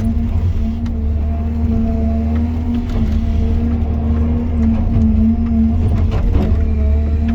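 Caterpillar 320 GC hydraulic excavator's diesel engine running at a steady speed: a constant low rumble with a steady hum over it, briefly wavering in pitch near the end.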